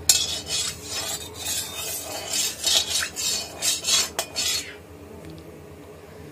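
Perforated metal spatula scraping and stirring around the inside of a metal kadai that holds a little oil, in a run of quick scraping strokes that stops after about four and a half seconds. A low steady hum runs underneath.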